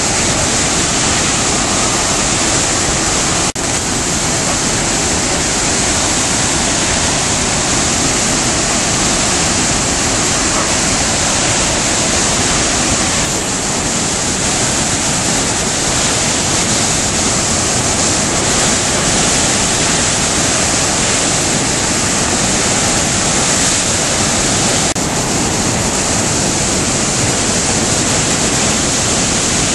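A flooded river rushing over a spillway drop and through churning rapids: a loud, steady rush of water.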